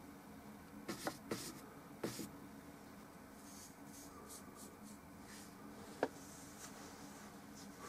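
Paintbrush stroking oil paint onto a small panel: a few brief scratchy strokes in the first couple of seconds, then a single sharp tap about six seconds in.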